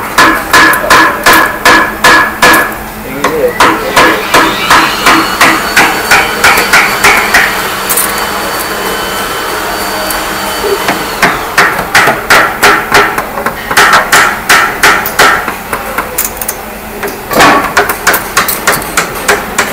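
Hand hammer striking repeatedly in quick runs of about three or four blows a second, each blow with a ringing note, the runs broken by short pauses.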